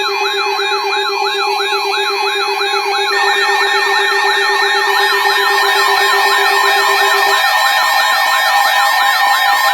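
Several electronic siren tones layered together: fast, repeating yelping sweeps over steady alarm tones, with a low steady buzz that cuts off about seven seconds in.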